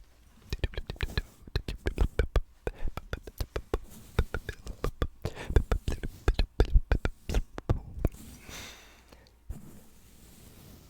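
Fast, wet ASMR mouth sounds close to the microphone: rapid clicks and pops for most of the stretch, then a soft hiss about eight seconds in.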